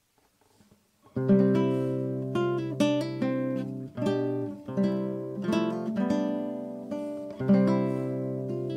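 Background music of an acoustic guitar strumming chords, each left to ring and fade before the next. It starts about a second in, after a moment of near silence.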